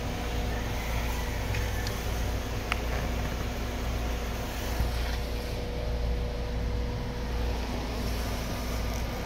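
Steady low mechanical hum with a faint held tone that fades out about seven and a half seconds in, and a few light clicks near the start.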